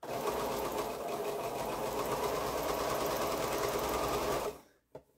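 Pfaff computerized sewing machine stitching a curved patchwork seam at a steady fast pace, then stopping suddenly about four and a half seconds in.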